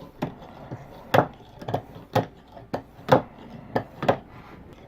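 Strop on a ViperSharp guided sharpening system worked along a knife edge in repeated one-direction strokes, with a sharp tap about twice a second as the strop is picked up and set back for each stroke.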